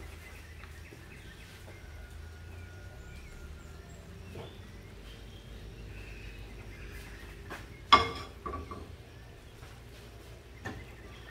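A frying pan set down on a gas stove's metal grate: one sharp clank about eight seconds in, with a short ring and a couple of lighter knocks after it, over a steady low hum and faint high chirps.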